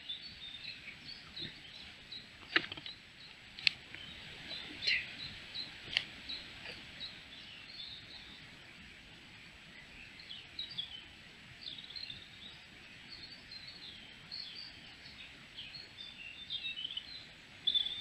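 Small birds chirping in woodland, many short high calls throughout and busier near the end, with a few sharp clicks about two and a half, three and a half and six seconds in.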